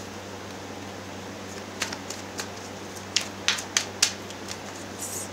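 A deck of tarot cards being shuffled by hand: a run of sharp card snaps and taps from about two seconds in, then a short soft slide near the end, over a steady low hum.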